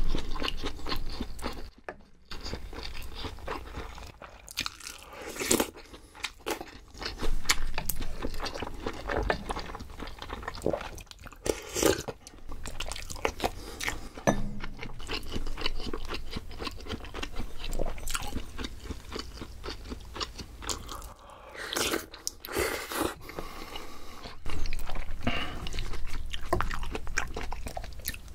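A person eating close to the microphone, chewing and crunching mouthfuls of food in irregular bites.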